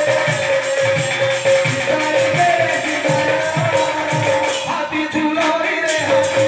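Live devotional bhajan music: a barrel drum beats a steady rhythm, and jingling cymbals play over a held drone note.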